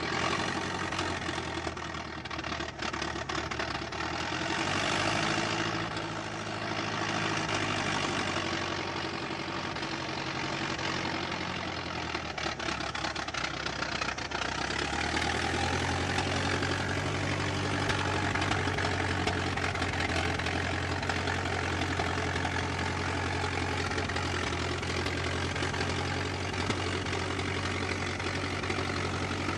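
Engine of a 1922 car running, uneven and surging during the first half, then settling to a steady idle from about halfway.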